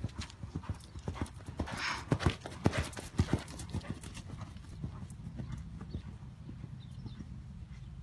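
A horse's hooves cantering on a sand arena just after a jump, the hoofbeats loudest and sharpest about two to three and a half seconds in, then fading to softer thuds. A short breathy rush sounds near two seconds in.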